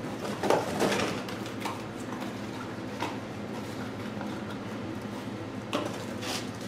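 A few light clicks and rustles of small carburetor kit parts being handled, over a steady low hum.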